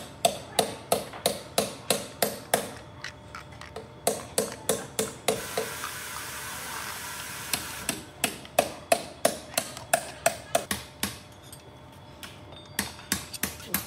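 Rapid sharp metallic knocks, about three a second, like hammer blows, in several runs. A steady hiss lasts about two seconds between runs.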